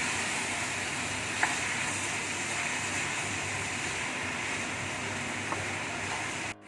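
Yellow noodles frying in a pan over medium heat: a steady sizzling hiss with a couple of light clicks from the stirring utensil.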